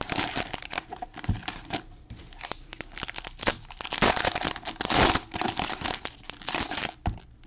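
Trading-card pack wrappers (2020 Panini Absolute Football fat packs) crinkling and tearing as the packs are ripped open by hand, with two louder rips about four and five seconds in.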